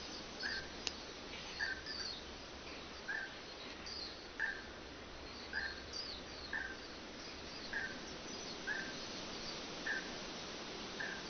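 Songbirds calling in a forest: one bird repeats a short call about once a second, while others chirp higher and irregularly, over a steady hiss of background noise.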